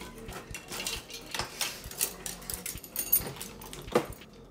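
Metal kitchen utensils clattering and rattling in a drawer as someone rummages through it for a spatula, with two sharper clanks near the end.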